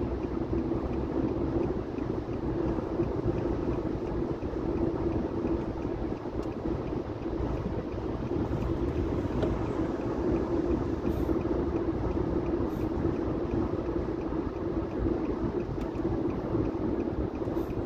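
Steady road and engine noise heard inside a car's cabin while driving at highway speed, a constant low hum over tyre rumble.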